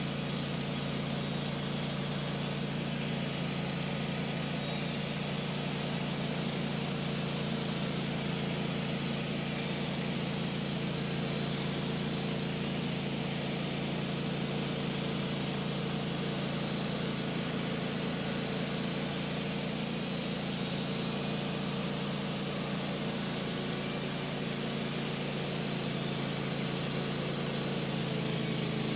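Wood-Mizer LT15 Wide portable bandsaw mill running steadily under load, its engine humming evenly while the band blade cuts through a black locust log.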